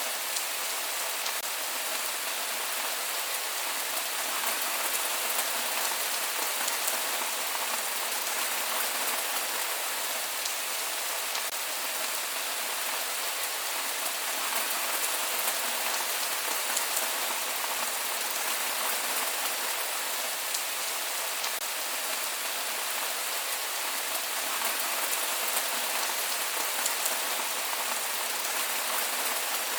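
Steady rain falling and pattering on surfaces, an even hiss with fine drop ticks and no thunder.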